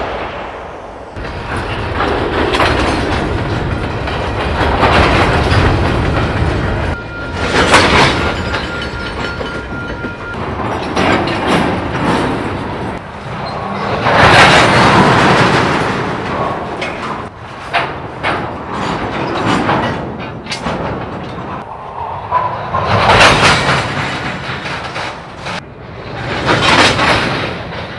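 Freight car couplers banging and clanking as slack runs in and out along a moving train: a string of sharp bangs and heavier booms over the low rumble of rolling wheels, with the loudest crashes coming about a quarter, a half and near the end of the way through.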